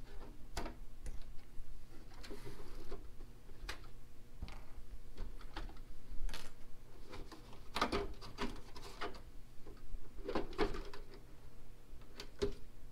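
Irregular plastic clicks and light knocks from removing the body clips and lifting the body off a Kyosho Hellcat MK2-chassis RC car.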